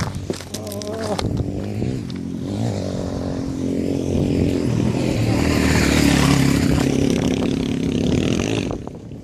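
Suzuki DR-Z400SM's single-cylinder four-stroke engine running steadily. It grows louder over the middle of the stretch and drops away sharply near the end. Shoes scrape and knock on loose rocks underneath it.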